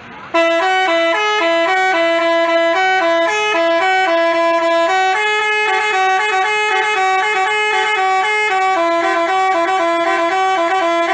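Telolet basuri bus horn playing a tune: a quick run of bright horn notes that steps up and down several times a second. It starts suddenly about half a second in and plays on without a break.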